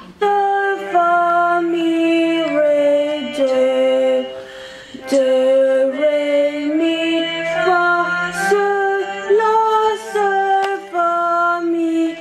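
A woman singing vocal warm-up scales, held notes stepping up and down one at a time, over a sustained low accompanying tone.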